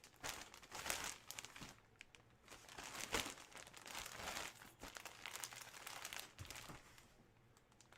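Plastic packaging crinkling and rustling faintly and irregularly as it is handled, with a few sharper crackles.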